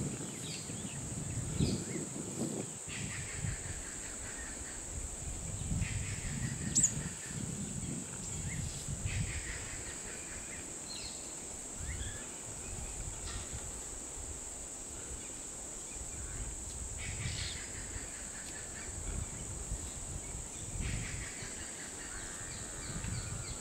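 Natural outdoor ambience: a steady high-pitched insect drone, with a bird calling several times over it and a low, uneven rumble underneath.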